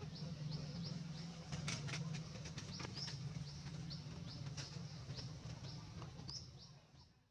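Small bird chirping in quick, short, high notes, about three a second, over a low steady rumble, with a few clicks about two seconds in; all of it fades out in the last second.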